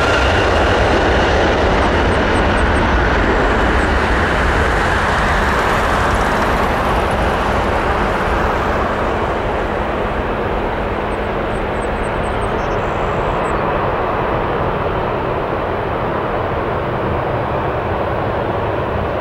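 Airbus A320's twin IAE V2500 turbofan engines at takeoff thrust: a loud, steady rush of jet noise as the airliner lifts off and climbs out, slowly growing quieter as it draws away.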